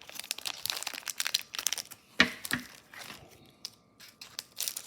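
Crinkling and crackling of a trading-card rack pack's plastic wrapper and cards being handled: irregular small crackles with a sharper snap about two seconds in.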